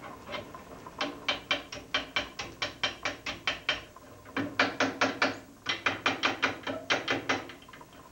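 Hand hammer striking a steel bar against a two-post bending fork on an anvil, in quick runs of about four ringing blows a second with two short pauses. This is the bar being bent one way and then the other around the fork.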